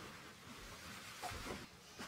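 Faint rustling of a bed sheet as it is spread and tucked over a bed, with a few soft swishes about halfway through.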